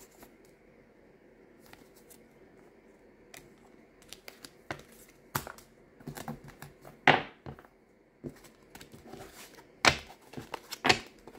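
Tarot cards being handled: irregular light clicks and rustles of card stock, with a few louder snaps, starting a few seconds in.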